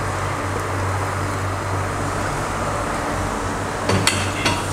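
Steady low hum and rush of a stock pot boiling over a gas burner, with a few sharp clinks of kitchen utensils about four seconds in.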